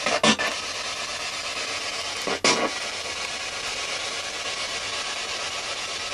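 Ghost box (spirit box) radio sweeping: a steady hiss of static, broken by two short bursts of sound just after the start and about two and a half seconds in.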